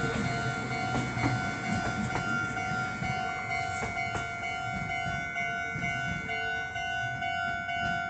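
Japanese railway level-crossing alarm ringing steadily as the tail of a Meitetsu 1200 series Panorama Super train rolls past, its wheels clacking over the rail joints. The train noise fades over the first few seconds and leaves the crossing alarm.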